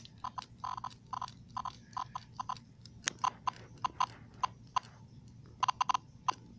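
A hollow plastic toy handled close up: irregular quick plastic clicks and taps, a few a second.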